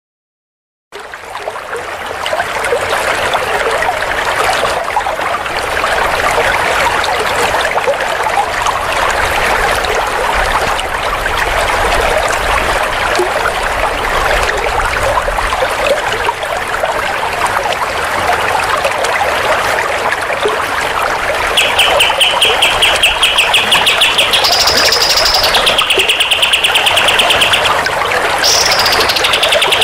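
Recorded small songbirds: a dense twittering chatter after a brief gap at the start. About two-thirds in, a fast, high, rapidly repeated trill joins and steps up in pitch twice.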